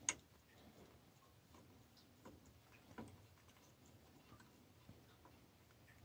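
Near silence broken by a few faint, short clicks and ticks, the sharpest right at the start: gloved fingers working push-on wire terminals off the power tabs of a VXT-120 boiler water feeder's electronics.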